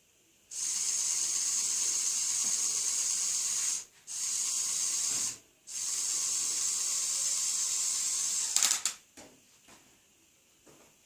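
Electric motor and plastic gears of a Lego Technic 42009 Mobile Crane MK II running with a steady high whir, in three runs stopped twice briefly, then a few clicks as it stops.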